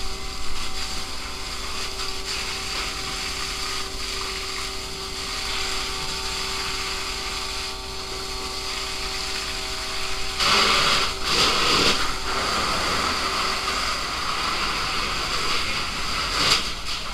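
Fire hose nozzle spraying a steady jet of water with a hiss, over the steady hum of an engine. The spray grows louder for a second or two about ten seconds in.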